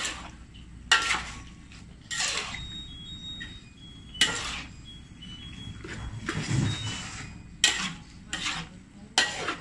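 Metal spatula scraping and knocking against a wok while stirring noodles, in irregular strokes every second or two.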